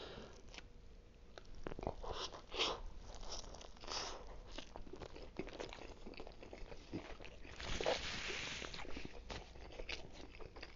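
A man chewing a mouthful of Philly cheesesteak close to the microphone: scattered soft clicks and smacks of eating, with a longer rustling stretch about eight seconds in.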